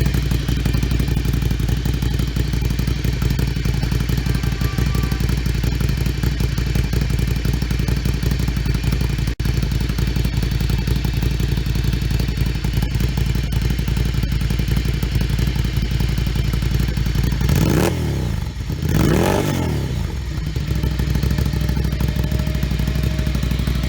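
Ducati Monster 797's air-cooled Desmodromic L-twin idling steadily through an aftermarket exhaust. A little past two-thirds of the way in it is blipped twice, the revs rising and falling quickly, then it settles back to idle.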